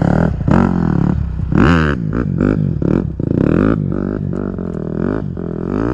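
Mini bike engine running and being revved, its pitch rising and falling several times.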